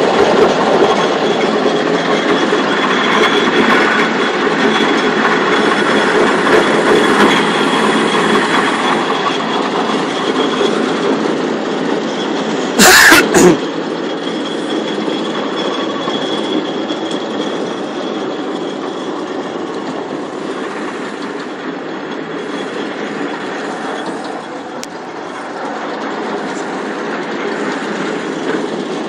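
Fortschritt E512 combine harvester running, a steady loud mechanical clatter and rattle of its working parts. A brief very loud burst of noise cuts in about halfway through.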